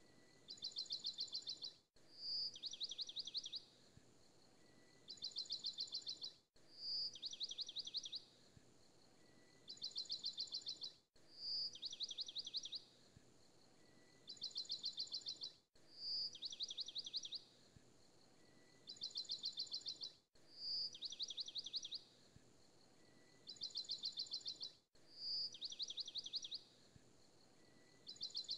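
High bird-like chirping trills: a single bright note and then two quick runs of chirps, repeating as an identical loop about every four and a half seconds.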